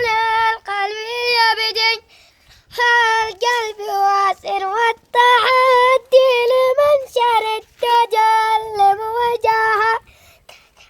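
A child singing a traditional Arabic song solo and unaccompanied: one high voice drawing out ornamented, wavering notes. It breaks off for breath about two seconds in and again near the end.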